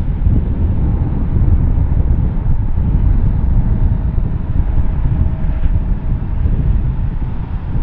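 Jet engines of a twin-engine Airbus A320-family airliner rumbling as it rolls along the runway, with wind buffeting the microphone. A faint steady whine comes in for a couple of seconds around the middle.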